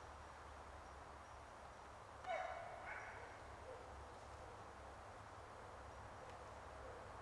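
A hunting dog gives one short bark about two seconds in, followed half a second later by a fainter one.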